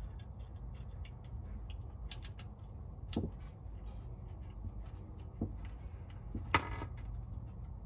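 Light, irregular clicks and taps of a Torx driver working the screws of the ABS module (EBCM) under the truck, with one sharper metallic click about six and a half seconds in, over a steady low rumble.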